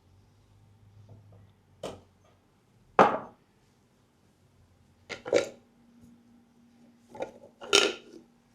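About six sharp knocks and pops from a hands-on leg and foot massage, the loudest about three seconds in and the last four coming in two quick pairs.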